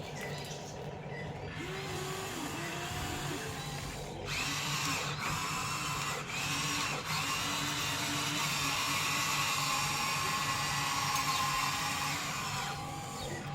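Electric gear motors of a Huina remote-control toy excavator whining as it works. The whine gets louder about four seconds in and drops back near the end.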